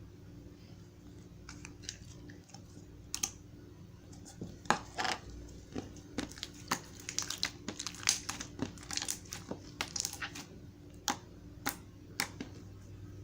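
Irregular short crisp clicks and crackles close to the microphone, sparse at first and coming thick and fast from about four seconds in, over a faint steady hum.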